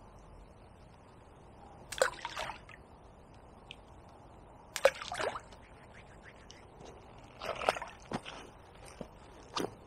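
Balls of groundbait thrown into a lake, each landing with a short splash, about four times at intervals of a few seconds.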